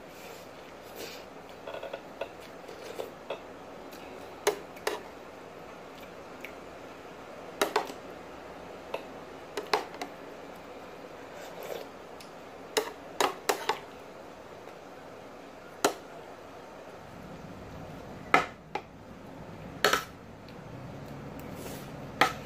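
Metal spoon and fork clinking and scraping against a ceramic plate and bowl during a meal: sharp separate clicks every second or two, with soft chewing sounds between them.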